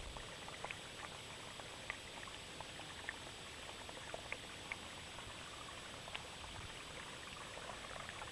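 A small mountain stream just trickling, a faint steady water sound with scattered small plinks and splashes.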